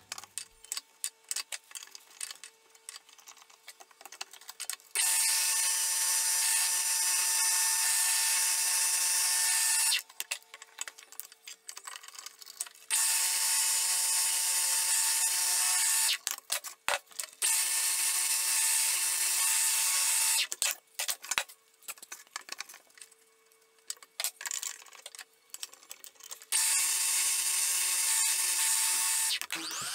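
Bench drill press boring holes in plywood with a Forstner bit: four loud, steady cutting bouts of three to five seconds each. Between the bouts the motor hums quietly under scattered clicks and rattles.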